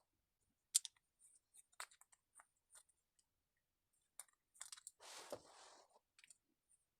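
Faint, scattered small clicks and taps of chainsaw carburetor parts being handled, with a short rustle just after five seconds in.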